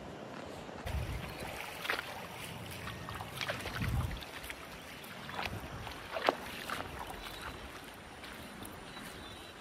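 Wind buffeting a phone microphone beside a wide river: a steady rushing hiss of river water, low gusts about a second in and again around four seconds, and scattered small clicks.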